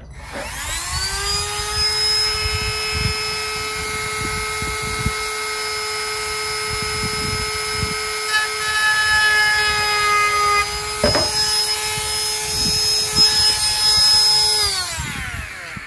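Small cordless rotary tool with a sanding drum spinning up to a steady high whine, sanding a notch into the edge of a plastic fuse-box case, with uneven scraping where the drum bites the plastic; it winds down near the end.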